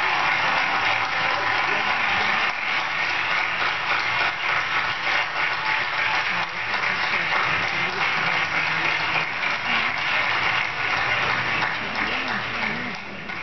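Large crowd applauding, a dense, steady clapping that dies away near the end.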